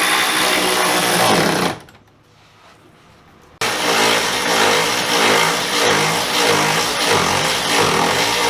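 Handheld power tool running: it stops under two seconds in, starts again about three and a half seconds in, and runs on with a wavering pitch.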